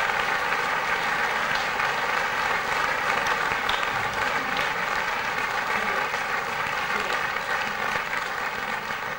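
Concert audience applauding, a steady wash of many hands clapping that begins to thin out near the end.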